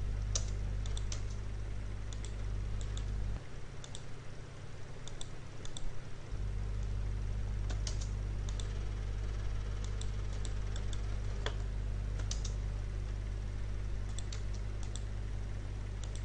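Scattered clicks of a computer keyboard and mouse, singly and in quick little runs, as drawing commands are entered. Under them runs a steady low electrical hum that drops out for about three seconds a few seconds in.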